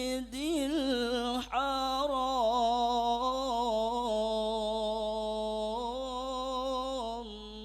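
A man chanting Quran recitation unaccompanied, in a dry voice with no added effects. After a short break about a second and a half in, he holds one long, wavering, ornamented note that ends just before the end.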